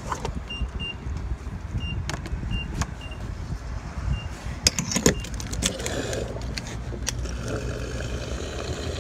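Fuel filler and gas pump nozzle being handled, with a few sharp clicks and knocks and some faint short electronic beeps, then fuel running from the nozzle into the car's filler neck as a steady hiss over a low rumble from about halfway through.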